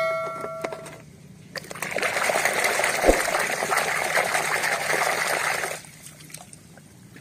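Water sloshing and splashing in a plastic basin as a hand swishes and scrubs a toy school bus through it, for about four seconds, with a single low knock partway through; the splashing stops near the end, leaving only a faint trickle.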